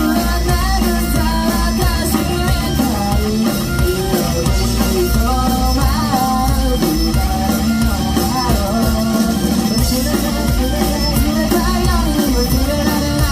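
Live rock band playing loudly and steadily: drum kit and electric guitars, with a voice singing the melody over them.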